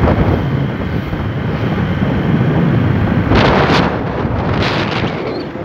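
Wind buffeting the microphone of a camera held by a rider on a moving motorcycle: a heavy, steady rumble, with stronger gusts from about three seconds in.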